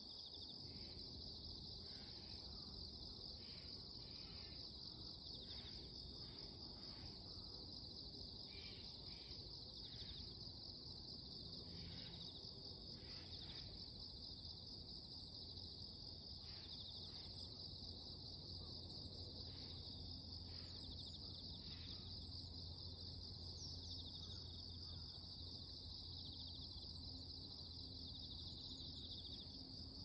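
Steady high-pitched chorus of insects calling from the trees. Shorter calls break in about once a second through the first two-thirds.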